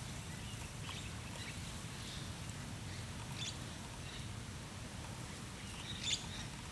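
Outdoor ambience: a steady low rumble with a few faint, brief bird chirps scattered through it, the loudest near the end.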